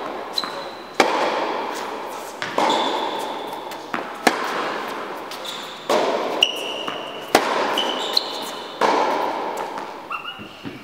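Tennis rally on an indoor hard court: racket strikes and ball bounces about every one and a half seconds, each ringing out in the hall's long echo, with short high sneaker squeaks on the court surface between hits. Near the end the hits give way to a few softer taps.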